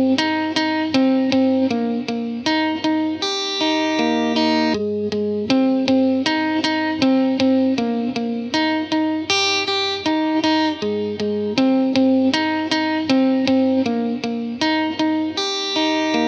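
Background music: a plucked guitar picking a repeating melody of single notes at a steady pace, about three notes a second.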